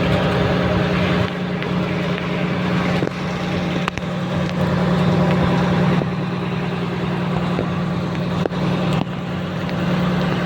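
Small fishing boat's engine running steadily at a constant speed, with a few faint knocks over it.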